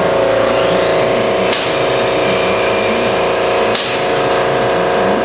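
A machine running steadily with a constant hum, broken by two sharp knocks, one about a second and a half in and one near four seconds.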